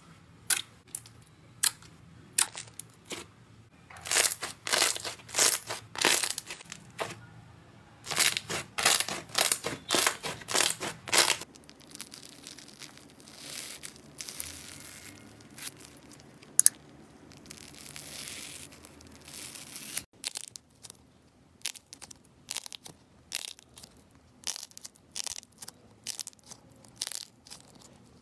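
Slime and foam being pressed, poked and cut: sharp pops and clicks, stretches of dense crackling, and scissors snipping through a foam sponge midway.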